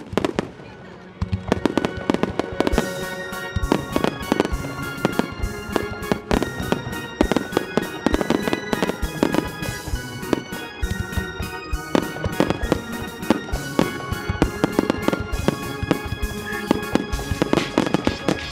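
Fireworks display: shells and rising comets bursting in many sharp bangs in quick, irregular succession. Music comes in about a second in and plays alongside the bangs.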